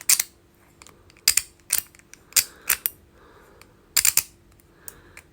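Sharp clicks from a handheld multifunctional fidget toy being worked by hand: about ten clicks in uneven groups, with a quick cluster of three about four seconds in.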